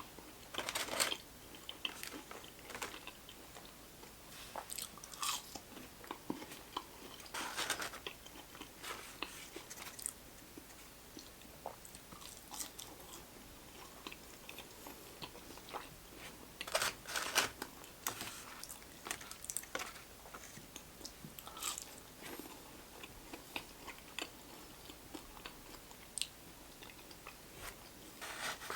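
A person chewing and biting into a fried chicken sandwich, with irregular crunches and wet mouth clicks; the loudest crunching comes about a second in, around eight seconds and around seventeen seconds.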